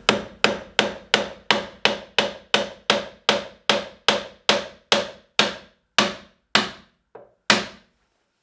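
Hammer driving a nail into the wooden front panel of a nesting box: about three quick, even blows a second, ending with a light tap and one last strike. The nail is the single pivot nail that lets the side open and close.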